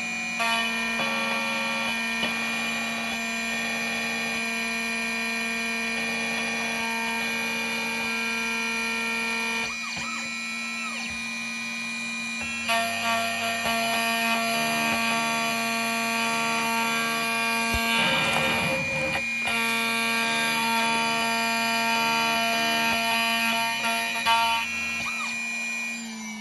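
Xhorse Dolphin key cutting machine's spindle motor whining steadily as its cutter mills the second side of a Skoda Octavia key blade. Right at the end the whine starts to fall in pitch as the spindle winds down when the cut finishes.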